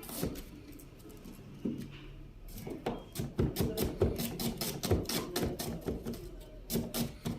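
Kitchen knife slicing an onion on a cutting board: a series of sharp chopping taps, sparse at first and then quick and even, about three to four a second.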